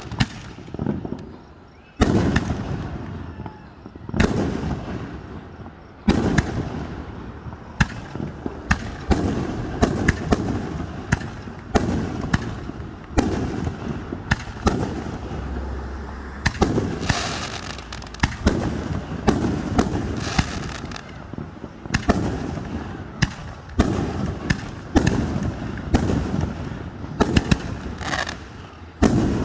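Fireworks display: sharp bangs of bursting fireworks, each followed by a fading rumble. Single bangs come about two seconds apart at first, then give way to a rapid run of overlapping bangs and pops.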